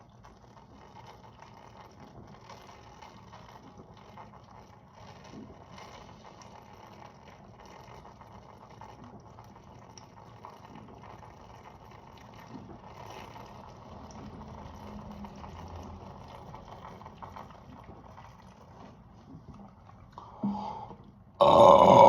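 Faint, continuous gulping and swallowing as a bottle of carbonated soda is chugged. Near the end it gives way to a sudden, loud, long burp with a wavering pitch, brought up by the swallowed fizz.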